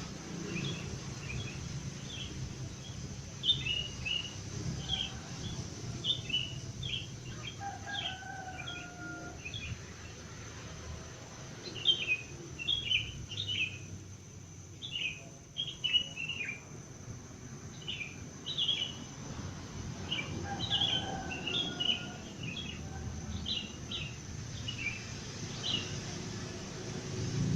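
Wild birds singing in the dawn chorus: short, sharp chirps repeating about once a second, with now and then a longer, lower whistled phrase, over a steady low background rumble.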